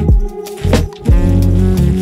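Background instrumental music with drum hits and a bass line.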